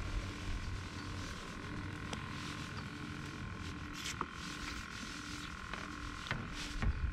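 A steady mechanical motor hum, with a few faint ticks.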